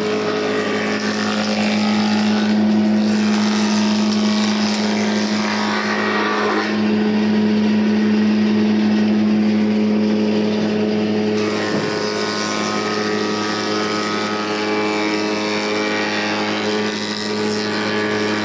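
Electric wood planer (randa machine) running steadily, its motor humming under a dense cutting noise from planing mango wood; the cutting noise changes in character a few times as the wood is worked.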